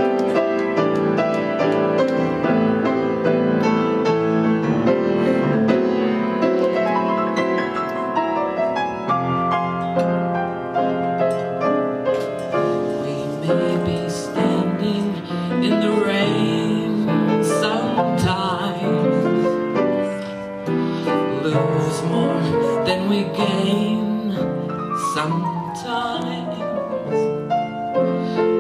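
Solo piano playing an instrumental interlude of a slow jazz ballad, with chords and quick runs of notes, including a falling run near the end.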